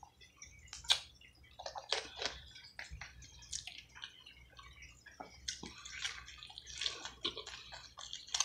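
Close-miked wet eating sounds: chewing and mouth smacking on saucy fried chicken, with scattered sharp clicks and sticky crackles as the meat is pulled apart with a fork.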